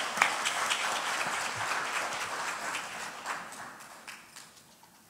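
Congregation applauding, a dense patter of many hands clapping that thins out and dies away about four seconds in.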